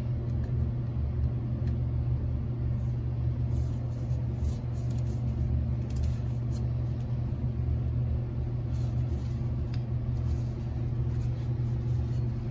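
A steady low hum, with the faint crackle of electrical tape being peeled off a motorcycle fork stanchion tube for a few seconds near the middle.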